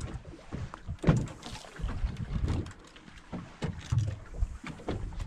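Water slapping and sloshing against the hull of a small fishing boat drifting with no engine running, with irregular knocks and thumps, the loudest about a second in.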